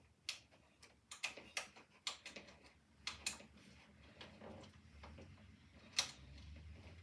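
Small irregular metal clicks and taps as screws and T-nuts are worked into the printer frame's aluminium extrusion rail, with one sharper click about six seconds in.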